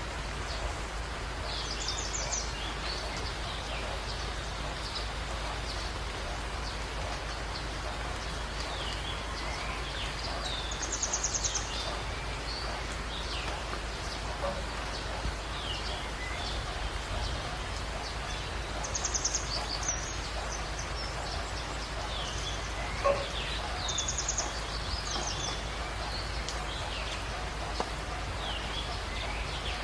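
Steady rain falling, with birds calling over it: scattered short chirps and a few quick high trills every several seconds. One sharp tap stands out about two-thirds of the way through.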